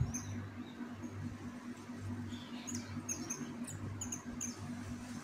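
Metal crochet hook drawing yarn through stitches: a scatter of small, high squeaks and scratchy ticks as the hook catches and pulls the loops, over a steady low hum.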